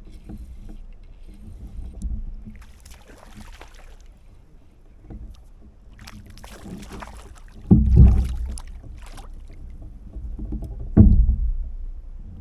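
Steady low rumble with patches of rustling handling noise, and two heavy knocks, about eight and eleven seconds in.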